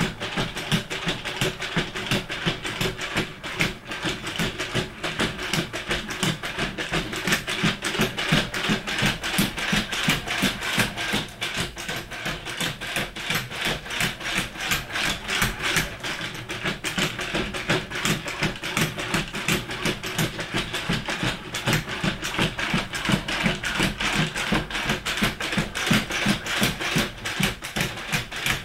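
Four-legged robot dog with brushless leg actuators walking on a hardwood floor: its feet tap in a rapid, uneven patter of several footfalls a second, over a steady mechanical hum and whine from the leg motors.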